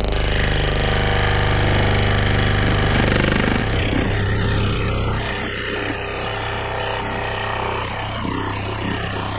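Scroll saw running, its reciprocating blade cutting through birch plywood, a steady mechanical chatter over a low hum. About three and a half seconds in it gets a little quieter and rougher.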